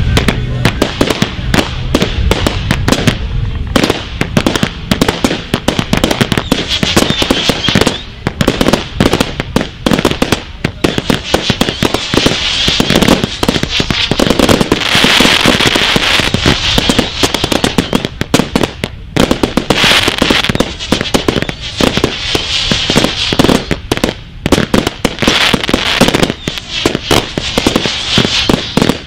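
Firework cakes going off in a dense barrage of rapid bangs, reports coming several a second with only brief lulls, under a steady crackling hiss.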